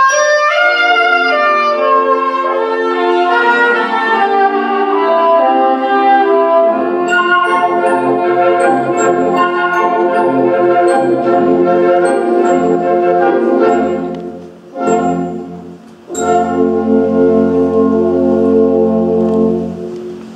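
Wind band playing the closing bars of a slow serenade: clarinets and flutes over brass, with low tuba notes coming in about seven seconds in. The sound briefly drops away near fourteen seconds, then the full band holds a final chord that fades at the end.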